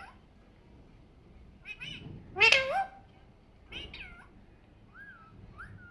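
Alexandrine parakeet calling: a short note, then a loud drawn-out call that rises and falls in pitch about two and a half seconds in, a falling call near four seconds, and soft whistled notes near the end.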